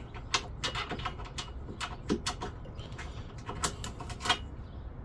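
A run of sharp clicks and light knocks, hard plastic tool-box parts and mounting hardware being handled and fitted together, some coming in quick clusters.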